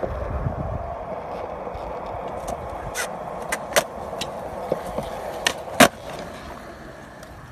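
Skateboard wheels rolling over concrete with a steady rumble, broken by several sharp clacks from about three seconds in; the loudest comes near six seconds.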